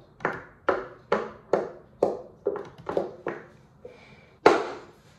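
A spatula scraping cake batter from a mixing bowl in repeated short strokes, about two a second, with one louder stroke near the end.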